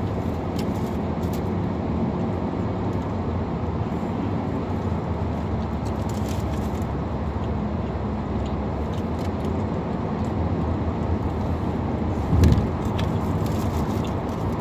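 Steady low road and engine rumble heard from inside a moving car's cabin, with a single dull thump about twelve seconds in.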